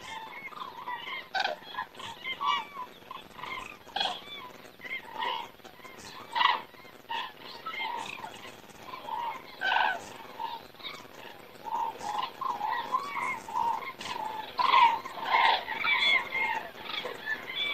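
A flock of common cranes calling in flight overhead: many overlapping calls, one after another without pause, busiest and loudest near the end.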